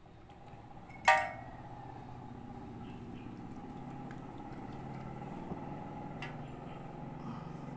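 One sharp glass clink with a short ring about a second in, as glassware is knocked or set down during mixing. A steady low hum follows behind it.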